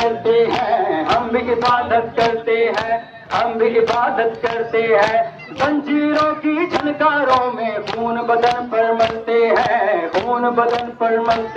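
A group of men chanting a Muharram lament (nauha) in unison, kept in time by hands slapping on chests in matam, about two slaps a second.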